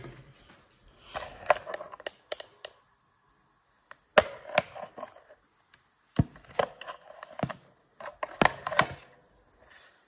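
A plastic bottle being handled and tipped over a cooking pot, with sharp knocks and clicks coming in four short bursts separated by quiet gaps.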